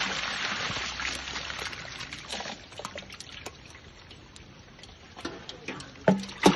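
Water poured from a bucket splashing into a plastic basin of fish, dwindling to a trickle over the first few seconds. Near the end come a few sharp knocks, the loudest two about half a second apart.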